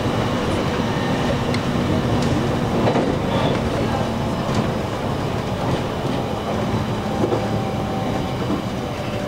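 Electric commuter train running on the rails, heard from inside the car: a steady rumble of wheels with scattered rail-joint clicks and a low motor hum that steps down slightly in pitch as the train nears the station.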